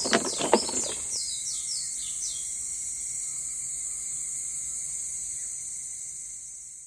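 Nature ambience of birds and insects: a steady high insect-like hiss with a run of short falling bird chirps just after the start, the whole fading out at the end. A brief clatter of louder sounds opens it.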